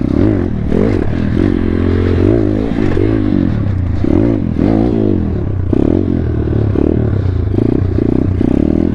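Thumpstar 140cc pit bike's single-cylinder four-stroke engine running, its pitch rising and falling again and again as the throttle is opened and closed.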